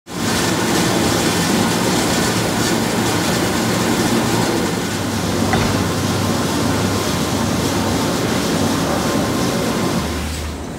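Grape destemmer-crusher running with Pione grapes and stems going through, a loud, steady mechanical rumble. Near the end it gives way to a quieter, lower hum.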